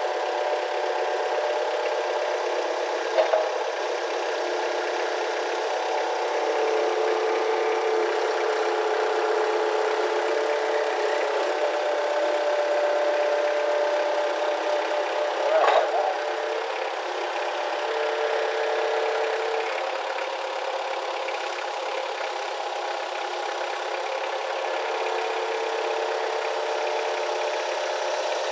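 Skid-steer loader's engine running steadily while its forks lift and hold a post, with a tone that comes and goes several times. Two sharp knocks, about three seconds in and about sixteen seconds in.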